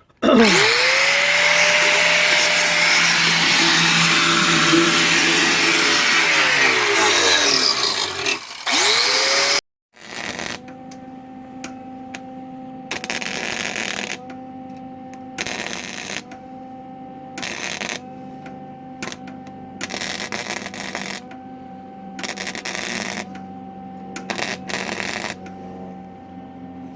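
Angle grinder spinning up and grinding off a car's trunk striker for about eight seconds, its pitch rising at the start and dropping as it winds down. After a cut, a welder hums steadily with about six short bursts of arc crackle, a few seconds apart, as the striker is welded back in.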